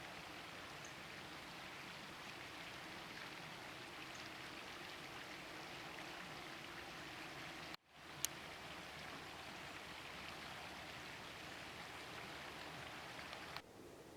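Steady hiss of outdoor background noise. It cuts out for a moment about eight seconds in, a single sharp click follows just after, and the hiss drops a little near the end.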